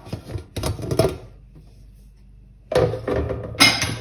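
Prestige Deluxe pressure cooker lid being twisted open and lifted off once the pressure has been released: clicks and scrapes of metal in the first second, then a louder clatter of the lid coming off near the end.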